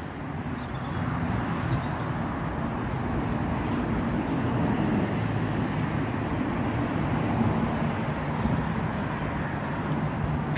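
Steady low outdoor drone with a faint hum that grows stronger near the end.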